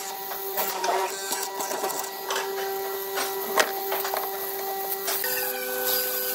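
Mortising machine running with a steady motor hum while its chisel cuts a slot in a wooden beam, with several sharp knocks as the chisel and timber strike, the loudest a little past halfway. About five seconds in, the hum changes pitch.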